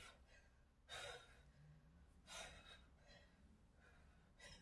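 Faint, short exhalations about every second and a half: a person breathing out hard with the effort of a core exercise (Russian twists).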